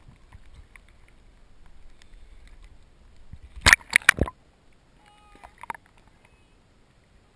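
Muffled underwater background noise, broken a little over halfway through by a quick run of four or five sharp clicks or knocks.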